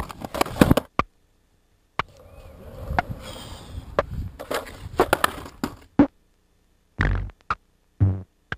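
Skateboarding on concrete heard in short, chopped clips that cut off abruptly into silence. It is mostly sharp knocks of the board with some rolling noise, and two brief low thuds near the end.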